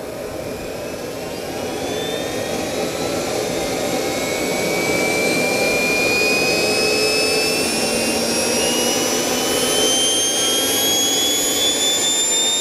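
JetJoe 1400 model jet turbine spooling up during its start-up fuel ramp: a whine that climbs steadily in pitch over a rushing hiss. It grows louder for the first few seconds, then holds.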